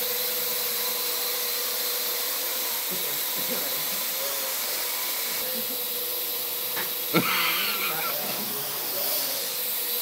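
Parrot AR.Drone quadcopter hovering, its four propellers giving a steady whir with a constant whine. About seven seconds in there is a brief, louder sound over it.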